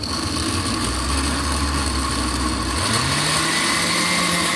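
Oster Duralast Classic countertop blender motor running steadily, its blades chopping chunks of English cucumber in the glass jar; the motor's pitch rises a little about three seconds in.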